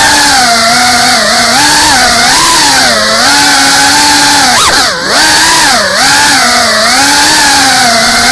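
Small FPV drone's motors and propellers whining up close from its onboard camera, the pitch rising and falling with the throttle. About five seconds in the pitch drops sharply and swoops back up in a quick throttle chop.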